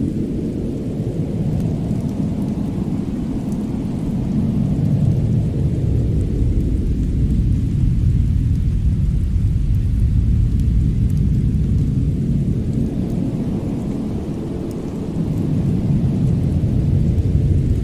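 Fireplace ambience: a deep steady rumble that swells and eases over several seconds, with faint sparse crackles of burning wood.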